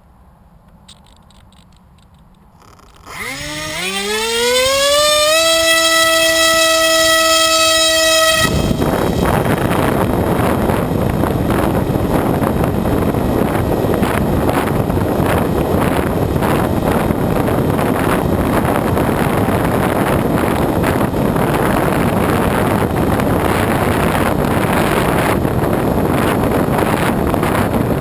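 Electric motor and propeller of a Bixler RC plane spooling up about three seconds in, a whine rising in pitch and then holding steady. About eight seconds in it gives way to loud wind rush over the onboard microphone, with the motor running at full throttle, as the plane is launched and flies.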